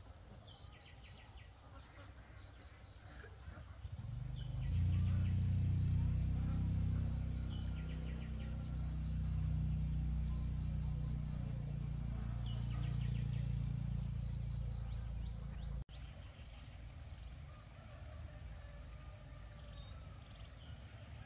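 Insects, crickets among them, trilling with a steady high-pitched drone and repeated short chirps. About four seconds in, a loud low droning hum sets in, and it stops suddenly near the sixteen-second mark.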